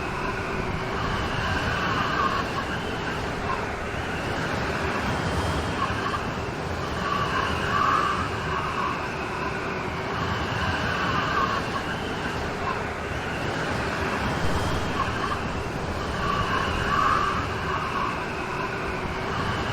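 Steady heavy rain. Through it comes a wavering background tone that swells and fades every few seconds.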